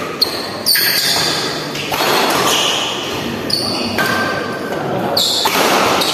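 Badminton doubles rally: rackets striking the shuttlecock and players' shoes squeaking in short bursts on the court floor, echoing in a large hall.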